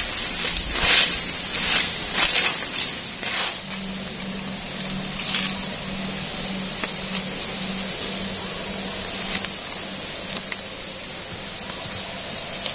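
Forest insects making one steady, high-pitched drone, with several short sharp noises in the first few seconds.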